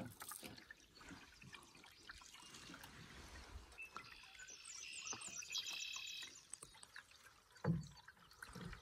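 Faint water trickling and dripping around a canoe moving over calm water. A bird gives a rapid high trill from about four to six seconds in, and there is one short low thump near the end, the loudest sound.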